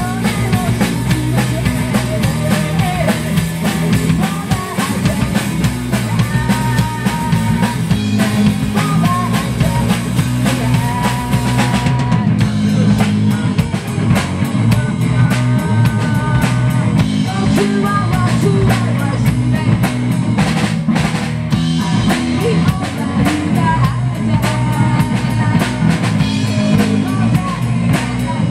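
Live rock band playing loudly: drum kit, electric bass and electric guitar, with a woman singing.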